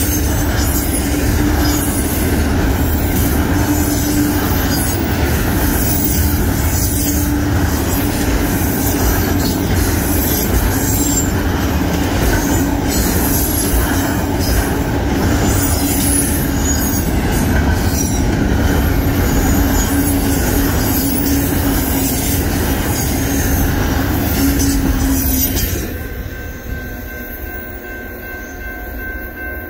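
Double-stack intermodal freight train rolling past a grade crossing: loud, continuous wheel-on-rail rumble and clatter with a steady tone running through it. The last car clears about 26 seconds in and the noise drops sharply, leaving the crossing bell ringing.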